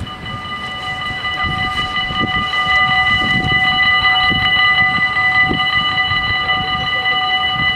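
Two level-crossing warning bells start ringing together and keep up a steady, high ringing while the warning lights flash and the barriers lower. A low rumble grows louder underneath.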